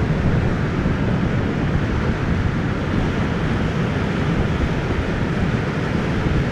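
Heavy storm surf breaking along a rocky coastline, a steady low rush with no distinct individual crashes, likely mixed with wind on the microphone. The high waves are the swell left behind by a passing typhoon.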